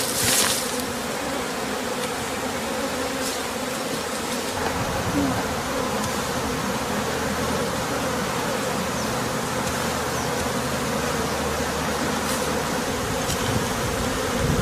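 Many honey bees buzzing around opened hives, a dense, steady drone that holds at one level throughout. A brief rustling noise right at the start.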